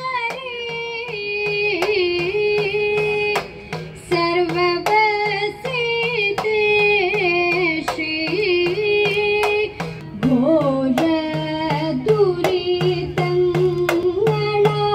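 Carnatic-style song: a high voice sings a slow, ornamented melody with accompaniment over a steady beat of sharp clicks. The singing breaks briefly about four seconds in and again about ten seconds in.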